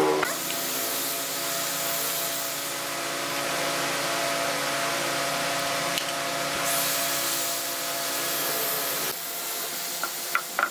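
Electric power tool running steadily on wood, a motor hum with a rushing, sanding-like noise, easing off about nine seconds in, followed by a few light clicks.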